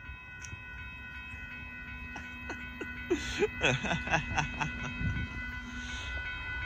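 Railroad grade crossing warning bells ringing steadily while the gates are down and the lights flash, with a steady low tone underneath. From about two seconds in, a quick run of sharp clicks and short squeaks is the loudest sound.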